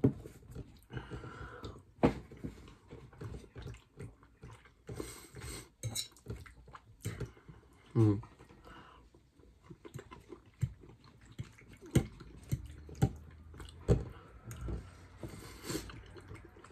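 Close-up eating sounds: a fork clicking and scraping on a plate and chewing, with irregular sharp clinks throughout and a brief vocal sound about eight seconds in.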